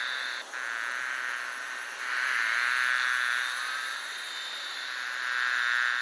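A dense mass of honeybees buzzing on an exposed honeycomb: a steady hum that swells louder about two seconds in and again near the end, with a brief dip about half a second in.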